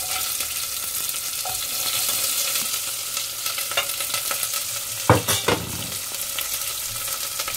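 Sliced onions sizzling in hot oil with mustard and fennel seeds in a pot, a steady hissing fry. Two knocks come about five seconds in.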